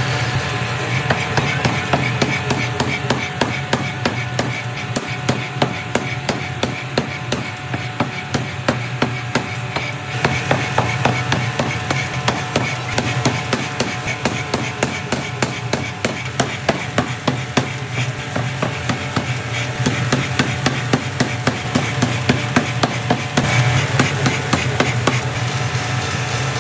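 Forging hammer blows striking a steel bar being forged into a rectangular die plate, repeating steadily at about two to three blows a second over a steady low machine hum.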